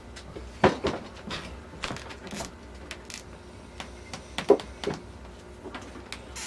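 Irregular clicks and knocks of metal gearbox and overdrive parts being handled and moved, with the sharpest knocks about half a second in and again past the middle.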